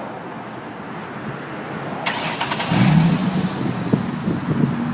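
2006 Ford Mustang engine started by remote start: the starter cranks about two seconds in, the engine catches, and it settles into a steady idle.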